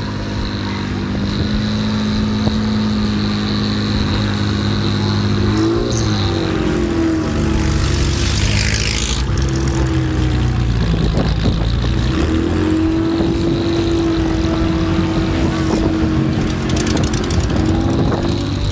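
Engine of a Porsche 911 race car, an air-cooled flat-six, running at low revs as the car rolls slowly along. About six seconds in the pitch briefly shifts up and down, and a short rushing noise passes about two seconds later.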